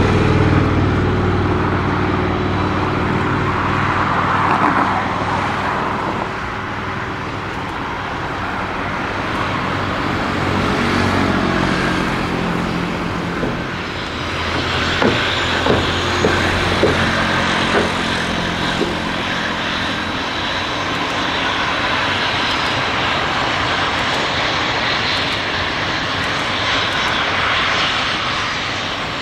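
AIDC AT-3 jet trainers' twin turbofan engines running as the jets taxi, with a steady high turbine whine that grows stronger about halfway through. A few sharp clicks sound a little after the halfway point.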